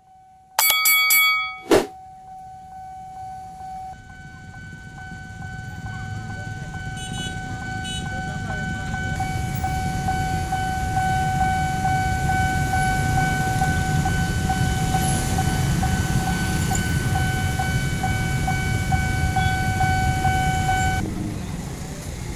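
Railway level-crossing warning signal sounding a steady high tone over a low rumble that swells through the middle; the tone cuts off suddenly near the end as the crossing reopens. Near the start, a short loud chime.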